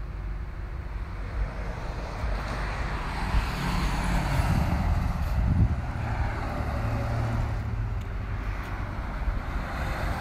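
Road traffic: cars passing on the street, swelling from a few seconds in, over a steady low rumble.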